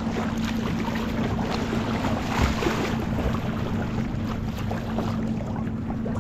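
Kayak on open river water: paddle splashes and water noise with wind on the microphone, over a steady low drone.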